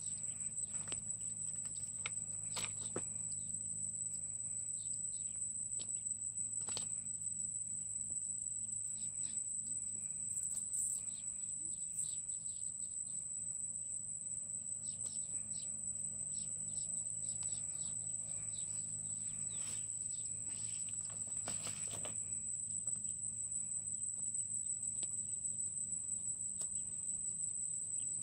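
Rural outdoor ambience: a steady high-pitched insect drone, like a cricket or cicada, with scattered short bird chirps and rustles over a low steady hum.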